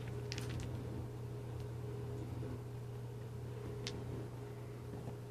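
A steady low mechanical hum holding one pitch, with a few faint, brief clicks about half a second in and again near four seconds.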